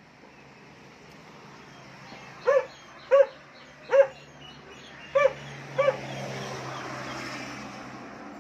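A dog barking five times, single short barks spaced under a second apart.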